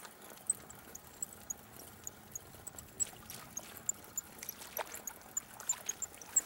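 A small crucian carp splashing and thrashing at the surface of the pond as it is reeled in on a float rod. There are several short splashes, the strongest a little under five seconds in.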